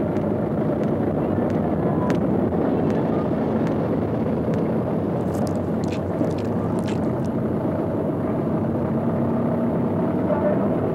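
Steady rumble of city street traffic. A few short crackles of paper wrappers being handled come near the middle.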